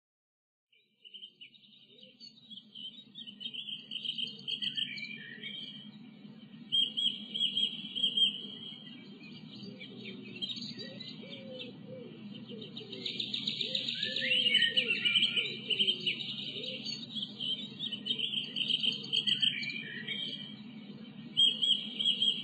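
Songbirds singing, with repeated high trills and chirps, over a steady low hum. It starts about a second in.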